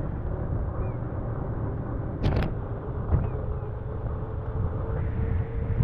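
Wind rumbling on the microphone and road noise from a pedelec riding along, with a faint whine that climbs slowly in pitch. A short sharp rattle comes about two seconds in, and a smaller one about a second later.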